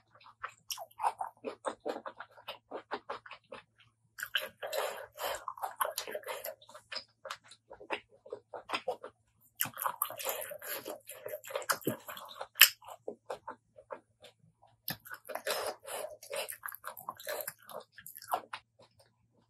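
Close-miked chewing of spicy Thai apple snail salad: wet, rapid clicks and squelches in several bursts with short pauses between them, and one sharp, louder click about two-thirds of the way through.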